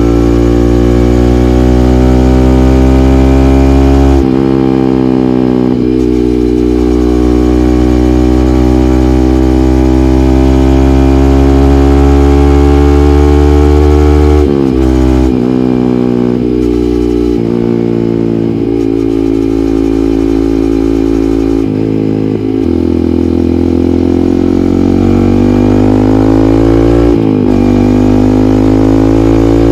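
Yamaha MT-15's 155 cc single-cylinder engine, breathing through an aftermarket SC Project muffler, pulling under way: the exhaust note climbs slowly in pitch, with sudden drops at gear changes about four seconds in, about halfway through and near the end.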